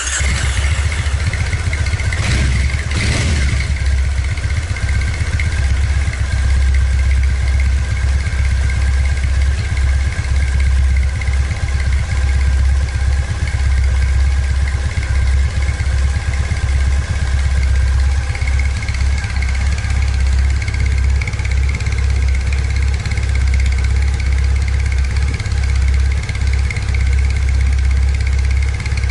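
2009 Triumph Bonneville SE's air-cooled parallel-twin engine idling steadily through its stock mufflers, just after starting.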